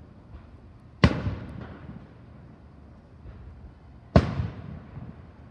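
Aerial firework shells bursting: two sharp bangs about three seconds apart, each trailing off in an echo.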